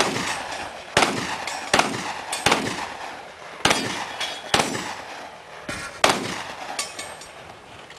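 A shooter firing about six gunshots at uneven intervals, roughly one a second, each sharp crack followed by a ringing echo.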